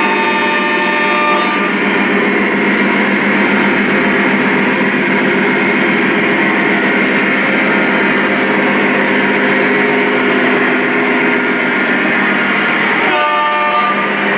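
Lionel Legacy Union Pacific ES44 model diesel locomotives' onboard sound system: the multi-chime horn blowing at the start, then the diesel engine sound running steadily as the train rolls, and the horn blowing again near the end.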